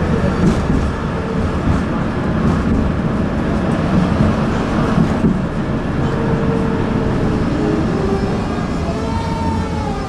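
Tram running along a city street, heard from inside the car: a steady rumble of wheels on the rails. Near the end a faint wavering squeal from the wheels sets in.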